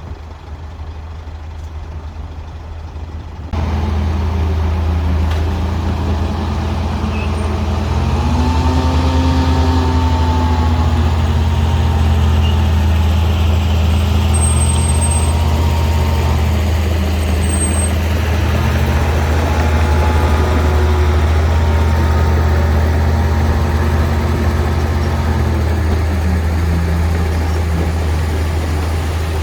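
Heavy diesel engine of earthmoving machinery running steadily under load, its pitch rising and falling slowly as it revs up and eases off. It becomes louder about three and a half seconds in.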